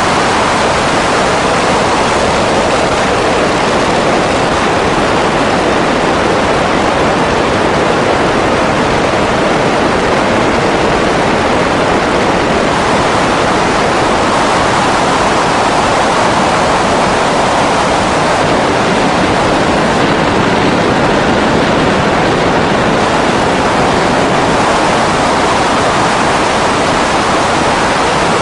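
Steady loud rushing roar of wind and propeller wash around a Grumman G-164 Ag Cat seaplane, with no distinct engine tone standing out.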